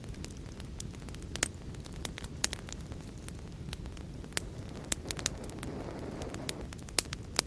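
Wood fire crackling in a fireplace: irregular sharp pops and snaps over a steady low rumble of flame, with a soft hissing swell for a second or so past the middle.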